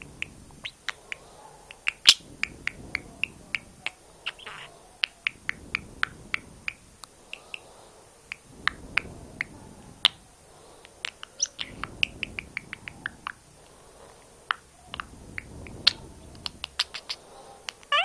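Young male budgerigar chattering close up: a busy run of sharp clicks and short chirps, with a warbling call right at the end.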